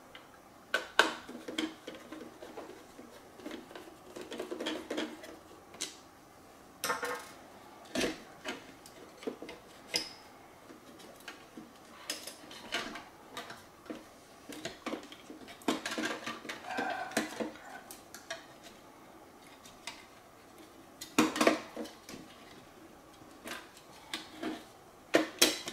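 Hard plastic parts of a Roomba clean base clicking, knocking and scraping against each other and the stone countertop as they are handled, while the suction motor is worked out of its plastic housing. The knocks are irregular, with a few louder ones near the middle and near the end.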